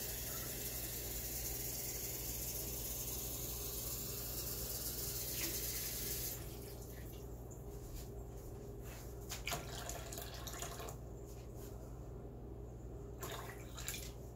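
Ultrasonic cleaner running with shotgun parts in its tank: a steady watery hiss over a low hum. The hiss drops off sharply about six seconds in, and a few light clicks follow.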